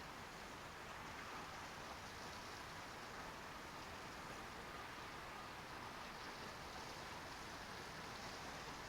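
Faint, steady hiss of background noise with no distinct sounds in it.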